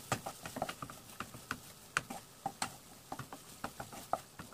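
Wooden spatula tapping and scraping against a frying pan as a mashed potato mixture is stirred and fried: an irregular run of light knocks, several a second.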